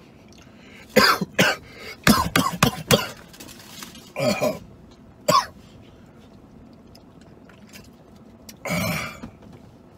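A man coughing: a run of sharp coughs in the first few seconds, then throaty throat-clearing sounds, one about halfway through and one near the end.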